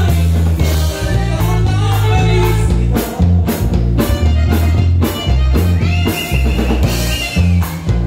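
Live norteño band playing dance music: a bass line stepping between notes under steady drum beats, with a long held high note about six seconds in.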